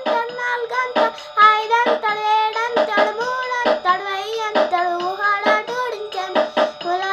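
A boy singing a Telugu Christian song, the melody rising and falling from phrase to phrase.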